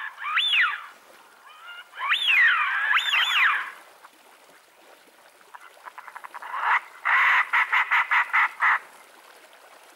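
Ducks calling: several whistled calls that rise and fall in pitch, one right at the start and two more a couple of seconds in, then near the end a quick run of about ten short clipped calls.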